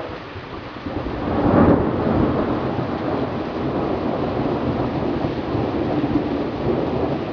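Thunder rumbling over steady rain. The rumble swells about a second in, is loudest shortly after, then rolls on.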